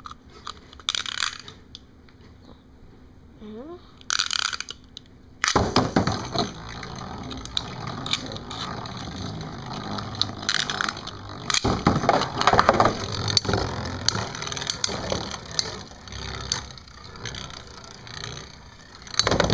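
Two short rustles, then from about five seconds in a continuous clattering scrape of metal-wheeled Beyblade spinning tops whirling in a plastic stadium, with sharp clacks as they strike each other.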